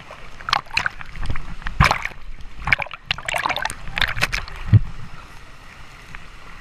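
Water splashing and sloshing in irregular bursts, with a heavier dull splash about five seconds in.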